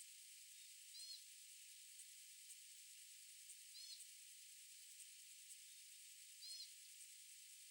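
Faint steady high hiss of mountain-lake ambience, with a single short high chirp-like bird call repeated three times, about every two and a half seconds.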